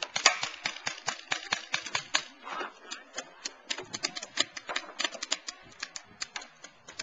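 Paintball markers firing rapid, uneven runs of sharp shots, several a second, loudest and densest in the first couple of seconds.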